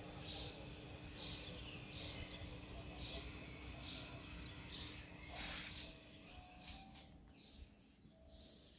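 A bird chirping over and over at an even pace, about three short high calls every two seconds, over a faint steady hum. The chirps fade out near the end.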